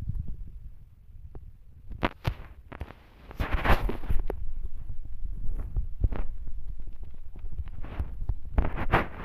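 Close, muffled low rumbling and rustling with scattered clicks and knocks: handling noise from a phone microphone being rubbed and moved about.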